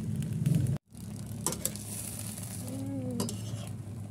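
A steady low hum that cuts off abruptly under a second in, then Malabar spinach and shrimp sizzling and simmering in a pan with a little broth, with a few clicks of a utensil against the pan as the food is stirred.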